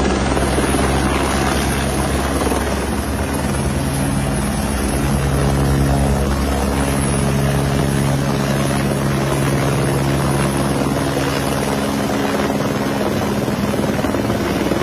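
Aircraft noise, loud and steady, with a fast low throb underneath and a few faint steady tones.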